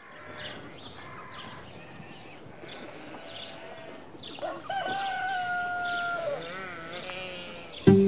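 Quiet farmyard ambience with faint, scattered high chirps. About four seconds in, a sheep or goat gives a long bleat, held on one pitch for nearly two seconds, then quavering and trailing off.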